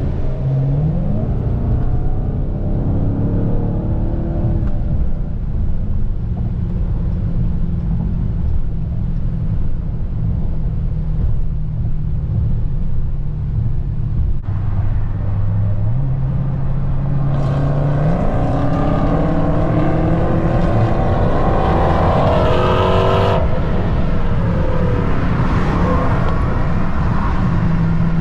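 Dodge Charger's engine and road noise heard from inside the cabin while cruising at highway speed. About two-thirds of the way through, a hard acceleration rises in pitch for some five seconds and then cuts off sharply as the throttle closes.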